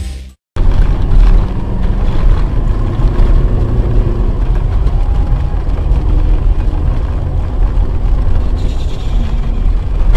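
Steady low rumble of road and engine noise from a moving car, starting abruptly after a brief silent gap.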